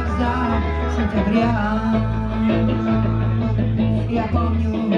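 Live band playing: bass guitar holding long low notes under electric guitar and trumpet, with a woman singing into a microphone.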